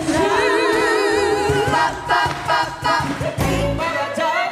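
Live vocal music: a woman singing into a microphone with a wavering vibrato, with other voices singing along.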